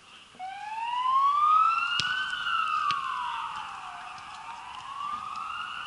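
Emergency vehicle siren wailing in slow sweeps: it comes in shortly after the start, rises for about two seconds, falls for about two, and rises again. Two sharp clicks sound near the middle.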